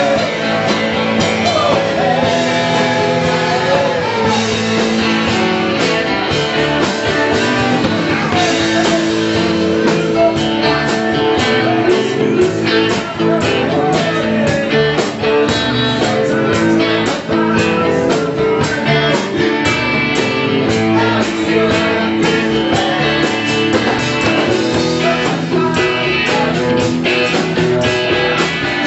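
A live rock band playing a song: voices singing into a microphone over electric guitars and a steady beat.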